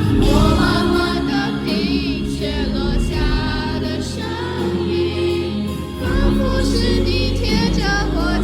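A male singer with a high, light voice singing a slow song live, with vibrato on the held notes, over a sustained instrumental accompaniment.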